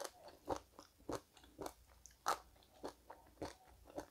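Close-up chewing of a mouthful of food, a string of short, irregular crunches picked up by a clip-on microphone.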